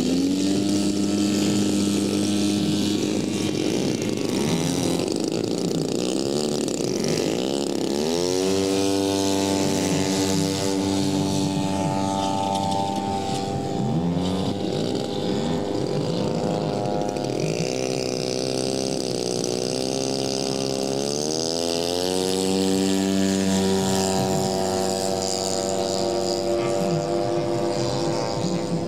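Several propeller engines of large radio-controlled warbird models running at once, among them scale Douglas Skyraider A-1s. Their pitch is steady at first, then rises sharply about eight seconds in, and keeps rising and falling as the models change throttle and pass by.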